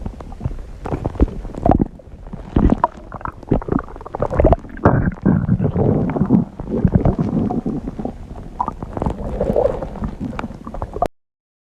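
Stomach growling and gurgling: irregular low rumbles broken by short pops. It cuts off abruptly about eleven seconds in.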